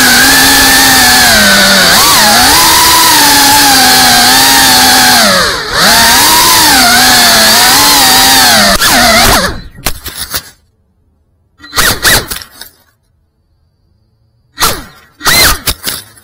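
FPV quadcopter's motors and propellers whining loudly, the pitch rising and falling with the throttle. About nine and a half seconds in the throttle drops off, leaving near silence broken by a few short bursts of motor whine.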